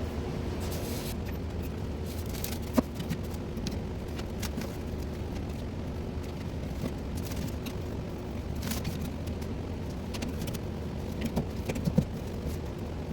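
Rustling and scraping of insulation being pulled off a hot-water pipe, with two sharp knocks, one near the start and one near the end, over a steady low hum.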